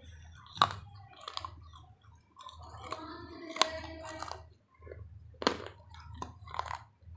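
Crunching and chewing hard shards of a baked clay pot (matki), with sharp cracking bites about half a second in and again at about five and a half seconds.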